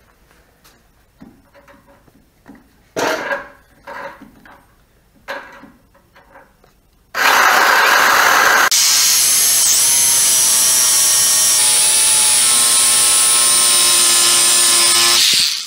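A few scattered knocks and clicks, then about seven seconds in a corded Craftsman reciprocating saw starts cutting off a tab: a loud, steady run with a high whine over it, cutting off suddenly near the end.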